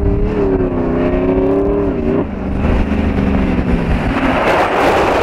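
Engine of a lifted SUV on large off-road tyres driving up a gravel road toward the microphone: a steady engine drone whose pitch drops sharply about two seconds in. A rush of tyres on gravel grows as the vehicle draws close near the end.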